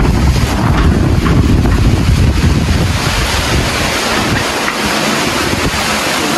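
Hurricane-force wind and heavy rain: gusts buffet the microphone with a deep rumble, which eases about four seconds in, leaving the steady hiss of pouring rain.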